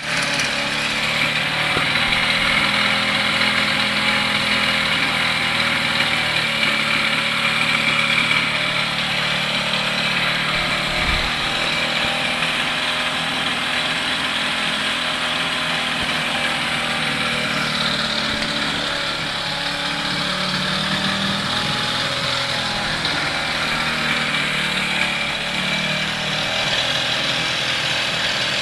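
1977 Batavus Intercycle moped's small two-stroke engine running steadily on its stand, a continuous buzzing drone, after being repaired.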